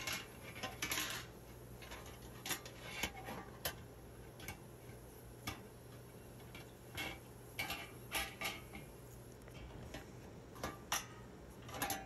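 Scattered light clicks and taps as a GE dishwasher's bottom kick panel is handled and set against the unit. Beneath them is a faint steady low hum from the dishwasher while it fills with water.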